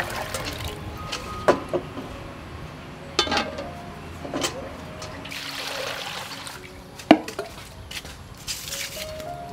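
Water pouring from a stainless-steel pot into a larger metal pot, stopping within the first second. Then several sharp clanks of metal cookware being handled and a lid set on the pot, the loudest about seven seconds in.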